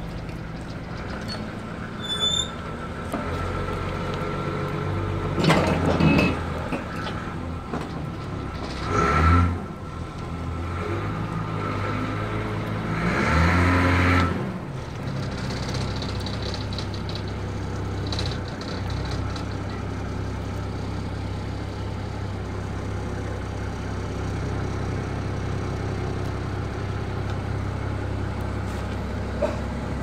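Diesel engine of a crawler pile driver running steadily at idle, with three louder hissing surges, about six, nine and thirteen to fourteen seconds in.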